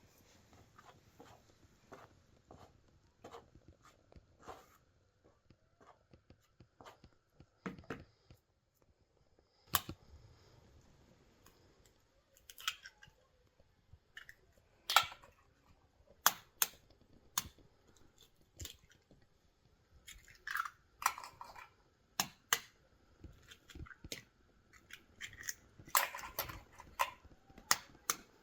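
Irregular clicks, taps and knocks, as of objects being handled, coming more often in the second half.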